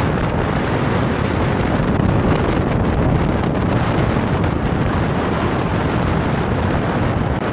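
Strong wind from a nearby tornado, a loud, steady rush with heavy low buffeting on the phone's microphone.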